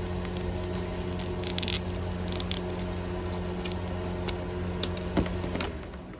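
Silicone domino mold being flexed and pressed by hand, giving scattered small clicks, crackles and squeaks as the cured resin dominoes shift in their cavities, over a steady low hum.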